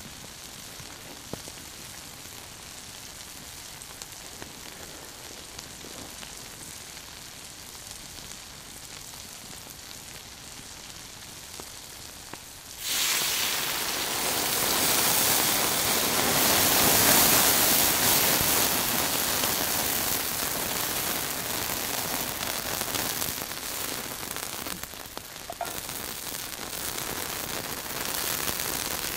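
Food frying in a pan over a campfire: a steady quiet sizzle, then about thirteen seconds in the sizzling suddenly gets much louder and slowly eases off.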